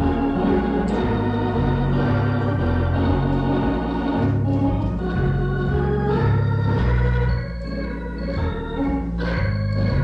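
Hammond B3 organ playing sustained chords over a bass line that changes note about once a second. It is an old live recording restored from a cassette tape.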